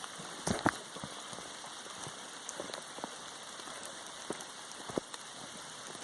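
Steady rain falling through the woods, with irregular sharp ticks of nearby drops striking, a few louder ones about half a second in.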